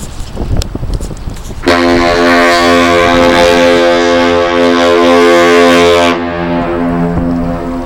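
Horn of the Great Lakes freighter Paul Tregurtha sounding one long blast, a chord of several steady tones, starting about two seconds in and lasting about four and a half seconds, then dropping sharply and trailing off more quietly for another second and a half.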